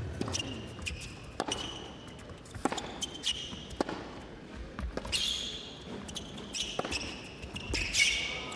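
Tennis rally: racket strikes on the ball about every second and a quarter, with short, high shoe squeaks on the court between them as the players change direction.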